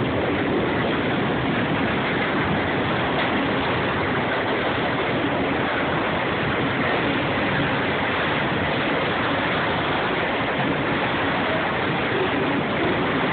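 Autorack freight cars of a CSX train rolling past close by: a steady, loud noise of steel wheels running on the rails.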